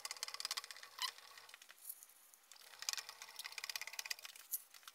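Milling machine table being traversed along the X axis: a faint, fast, even ticking from the table's feed mechanism, with a faint low hum, stopping about a second and a half in and starting again about a second later.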